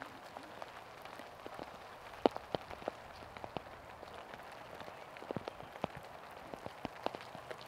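Faint outdoor ambience with scattered, irregular light ticks and taps, the sharpest about two seconds in.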